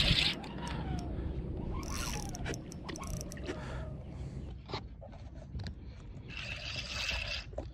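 Spinning reel being cranked while a fish is fought on a bent rod: gears turning with many small clicks and scrapes, and two short hissing bursts, one about two seconds in and one near the end.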